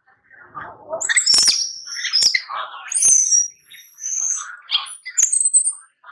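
Baby macaque crying: a string of high-pitched squeals alternating with lower, raspier whimpers, with short pauses between them.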